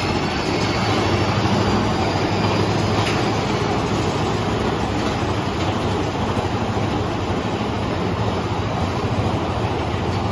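Mine-train roller coaster cars running along their track, heard from on board: a steady, even running noise with a low hum underneath and no breaks.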